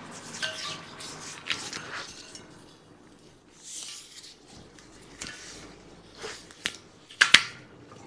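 Parts and tools being handled at a workbench: scattered clicks and scrapes, with one sharp clack near the end.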